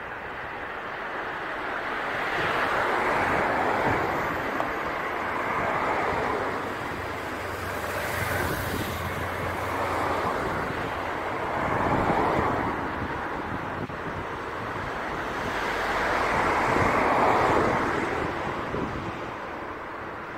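Gale-force wind gusting, swelling and fading several times, with wind buffeting the microphone.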